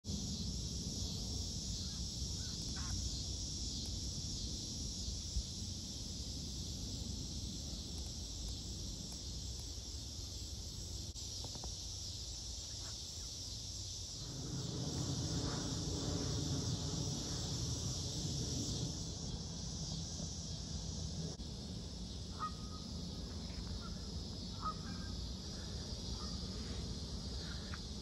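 Steady high drone of cicadas, with a few scattered short honks from grazing Canada geese, most of them in the second half. A low rumble runs underneath and swells for a few seconds midway.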